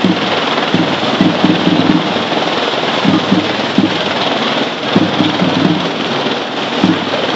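Loud outdoor street noise over a crowded avenue: a steady rushing hiss with irregular low rumbling bursts.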